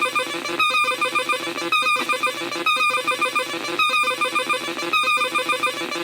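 Atari Punk Console synth kit (Atari Punkr) putting out a loud, buzzy electronic tone that repeats a warbling pattern, breaking off briefly about once a second.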